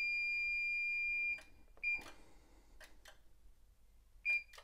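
Continuity beeper of a Fluke 1664 FC installation tester, sounding as the test leads are shorted together at the earth bar to zero them. One steady high beep stops about a second in. After it come a few clicks of the probe and two short beeps, one near the middle and one near the end.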